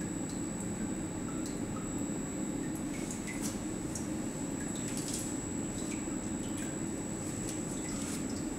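Watson-Marlow peristaltic chlorine dosing pump drawing liquid during calibration: small irregular drips and gurgles of liquid over a steady low hum with a faint high whine.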